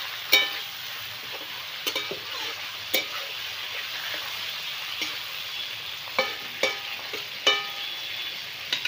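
Okra, potatoes and tomatoes sizzling in oil in a metal kadai, stirred with a metal spatula. The spatula knocks and scrapes against the pan about every second, each knock ringing briefly over the steady sizzle.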